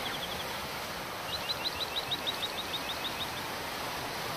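Forest ambience with a steady background hiss, over which a bird calls a rapid run of short rising notes, about seven a second, for about two seconds starting a second in.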